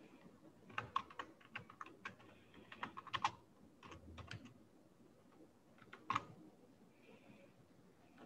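Computer keyboard typing: a quick run of keystrokes over the first few seconds, a few more after that, then a single louder keystroke about six seconds in.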